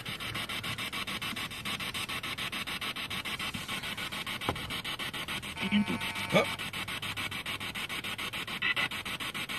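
Spirit box sweeping through radio frequencies: choppy static pulsing several times a second, with a brief snatch of sound breaking through about six seconds in.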